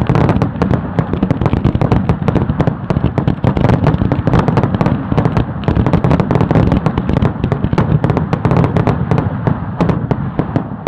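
Fireworks finale: aerial shells and rising comets fired in a loud, dense barrage, many bangs a second running almost together.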